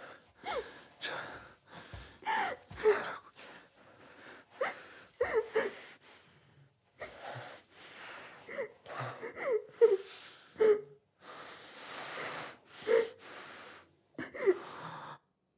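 A person sobbing, with gasping breaths and short broken cries that fall in pitch. The crying stops abruptly near the end.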